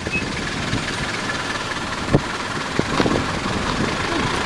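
Safari vehicle's engine idling with a steady low rumble, with a sharp knock about two seconds in and a few lighter knocks soon after.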